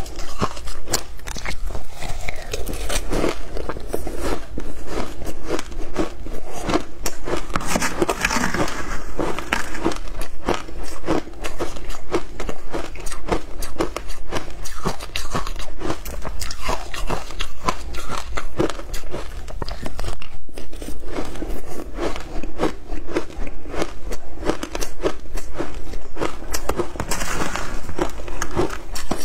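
Passion-fruit shaved ice being crunched and chewed in the mouth: a dense, continuous run of crisp crunches.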